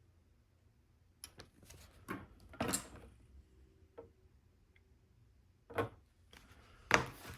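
Scattered clicks and short rustles of plastic LEGO pieces being handled and sorted, with a longer rustle a few seconds in and the sharpest click near the end.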